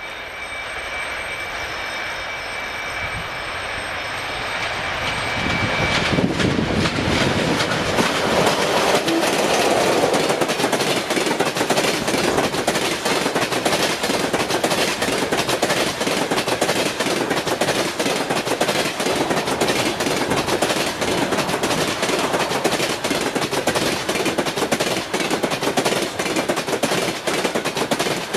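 EP1M electric locomotive and its passenger train passing at speed. A steady high whine is heard as it approaches, then about six seconds in the sound grows louder into a continuous, dense clickety-clack of carriage wheels over the rail joints as the cars go by.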